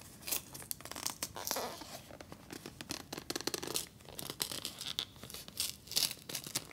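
Fingers tearing and working open the packaging of a new, unopened cardboard box of Tampax Compak tampons: a run of sharp crackles and tearing, loudest near the end.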